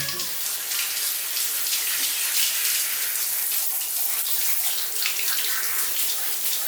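Running water spraying and splashing steadily, a hiss that flutters throughout.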